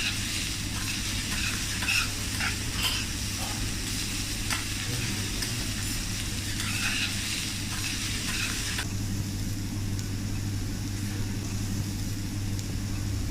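Food sizzling on a hot teppanyaki griddle, with a metal spatula scraping and tapping on the plate in short strokes, over a steady low hum. The sizzling drops away suddenly about nine seconds in, leaving the hum.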